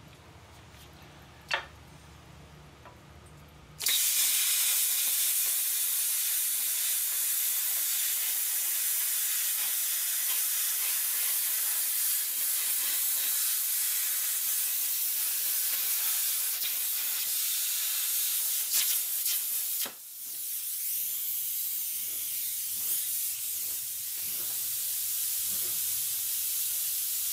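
Plasma cutter cutting a circle out of metal plate: a loud, steady hiss that starts suddenly about four seconds in, breaks off briefly near the end, then goes on a little quieter.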